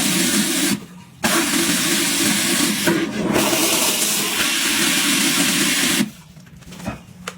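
Steady rushing of running water, broken off abruptly twice for a moment and stopping about six seconds in.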